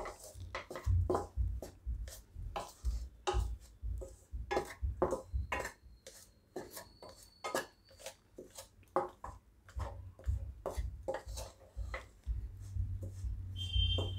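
Metal spoon scraping and tapping against the inside of a kadai, in quick irregular strokes, as rice flour and milk cream are stirred together over a low flame.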